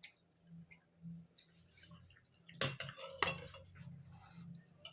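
Spoon clinking and scraping against a bowl of rice porridge during eating: a few faint clicks, then a louder run of clinks about two and a half to three seconds in.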